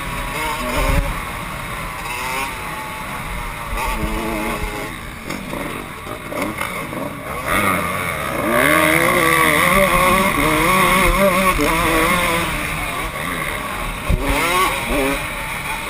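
Kawasaki KX125 two-stroke single-cylinder motocross engine revving up and down repeatedly as the bike is ridden hard, its pitch rising and falling with the throttle and gear changes; it is loudest and most sustained about halfway through.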